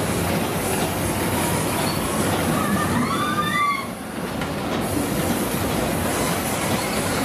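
Waltzer fairground ride running: a steady rumbling clatter of the cars and platform rolling round the track, with a few brief high squeals about three seconds in.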